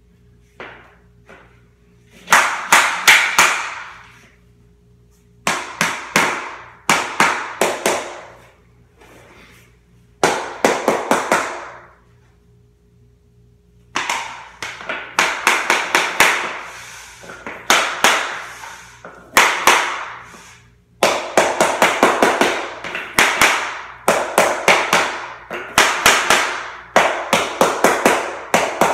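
Mallet tapping LifeProof vinyl floor planks to knock them together at the joints: runs of quick, sharp taps, several a second, broken by short pauses.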